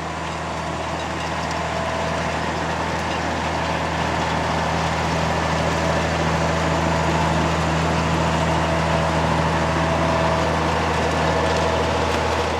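Cebeco ZA 215 EH sugar beet harvester's six-cylinder DAF diesel engine running steadily with a low, even hum, getting a little louder over the first few seconds.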